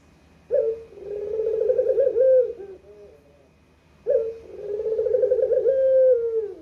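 Puter (domestic ringneck dove) cooing: two long rolling coo phrases about three and a half seconds apart, each opening with a sharp note and ending in a falling tone.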